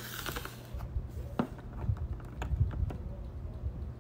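A handful of light, separate clicks and taps as a small nail-treatment bottle is handled and set down on a wooden tabletop, over a steady low hum.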